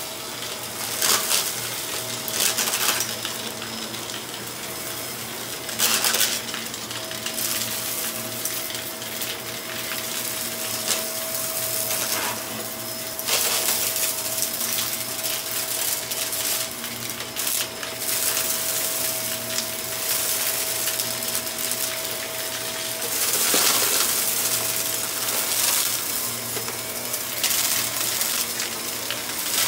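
Vacuum cleaner running on carpet with a steady hum, and crackling and rattling now and then as grit and debris are sucked up.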